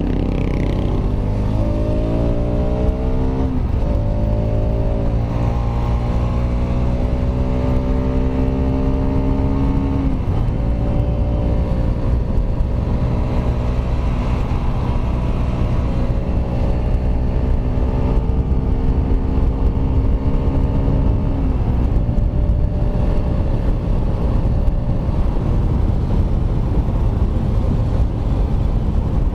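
Kawasaki Rouser RS200 single-cylinder engine pulling up through the gears while riding. The pitch climbs, drops at a shift about four seconds in, climbs again, and drops about ten seconds in. It then holds a steady cruise until about twenty-one seconds in, when wind and road rush take over.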